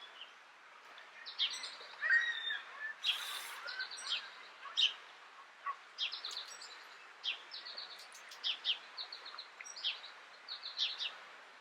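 Small birds chirping, many short quick chirps repeated throughout over a steady outdoor background hiss, with a brief rush of noise about three seconds in.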